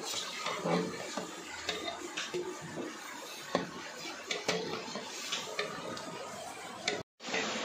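Long metal ladle stirring a large aluminium pot of steaming gravy, with scattered clinks and scrapes against the pot over a steady hiss.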